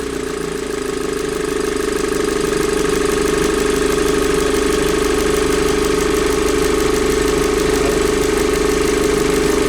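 Audi A4 B7 2.0T turbocharged inline-four engine idling steadily with an even pulsing hum, growing slightly louder over the first few seconds.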